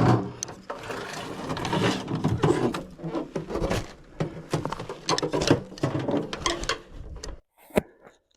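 Hard objects being handled: dense, irregular clattering and clicking that cuts off suddenly near the end, followed by one sharp knock.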